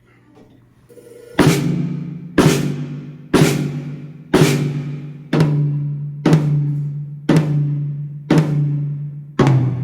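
A low-pitched drum struck about once a second, nine times, starting about a second and a half in; each hit rings out with a deep tone and fades before the next.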